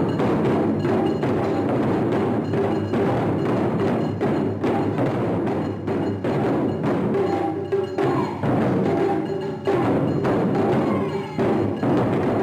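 Taiko drum ensemble playing a dense, driving rhythm of many close-spaced strokes, with sharp wooden clicks among the drumbeats.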